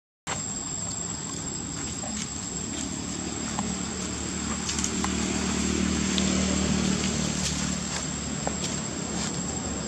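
A motor vehicle passing: its engine hum swells to its loudest about six seconds in and then fades, under a steady high-pitched whine.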